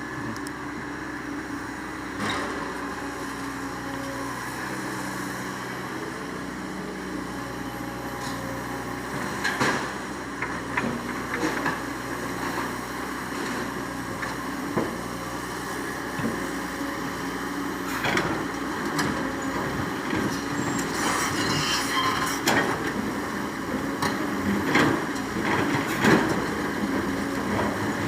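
Heavy diesel engine running steadily, with repeated knocks and clatter of sand and stone being loaded into a truck bed. The knocks come more often in the second half.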